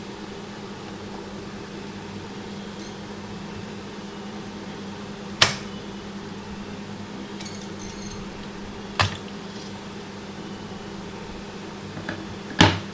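Three sharp knocks of hard parts, spaced a few seconds apart with the last the loudest, over a steady low hum.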